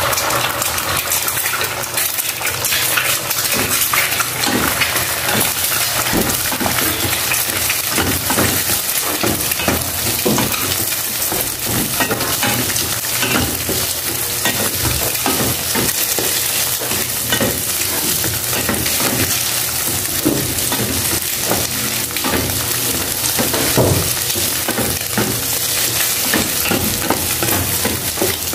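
Eggs sizzling in hot oil in a frying pan, a steady hiss, while a wooden spatula scrapes the pan and breaks them up in repeated short strokes.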